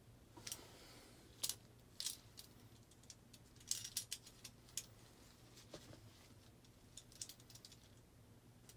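Faint scattered clicks, taps and rustles from a gloved hand pressing and shifting a wet, rubber-banded shirt on a wire rack over a plastic tub, with a low steady hum underneath.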